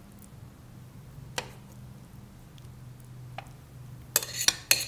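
Spoon scooping sticky oat-and-banana cookie dough from a glass bowl: mostly quiet, with a single click about a second and a half in and a quick run of sharp clinks of the spoon on the bowl near the end. A faint steady hum runs underneath.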